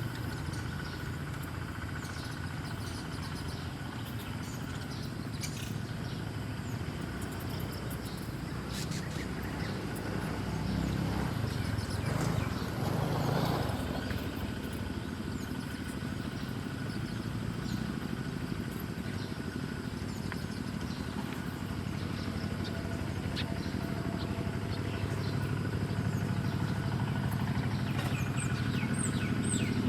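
Steady low engine drone of a motor vehicle, swelling and fading about halfway through, with faint bird chirps scattered over it and a quick run of high chirps near the end.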